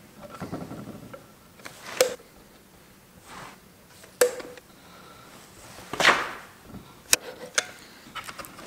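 Caulking gun being worked to squeeze PU glue from a cartridge onto wood end grain: a handful of sharp clicks from the gun, a second or two apart.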